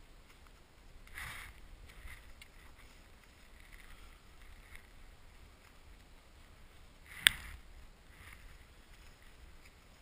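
Faint, soft swishes of powder snow shifting as a snowboarder moves the board and gloves in deep snow, with one sharp click a little past seven seconds in.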